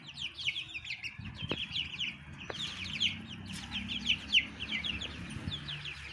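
Chicken chicks peeping continuously: a dense run of short, high, falling peeps, many overlapping each second. A low steady hum sits beneath, with a couple of sharp clicks.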